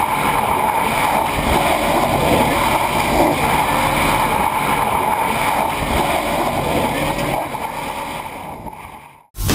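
Tyres of the electric BMW M3 race car spinning in a burnout, a steady rushing tyre noise that fades away near the end.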